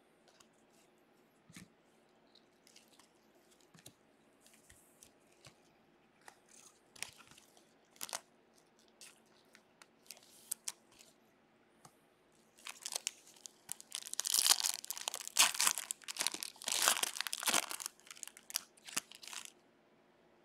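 Scattered light rustles and clicks of cards being handled, then several seconds of loud crinkling and tearing as a trading-card pack wrapper is ripped open.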